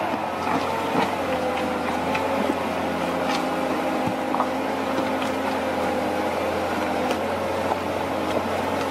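An engine running steadily, with scattered clicks and knocks over it.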